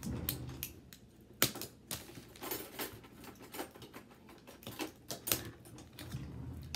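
Irregular clicks and taps of things being handled on a tabletop, a few sharp knocks among lighter rattly ones.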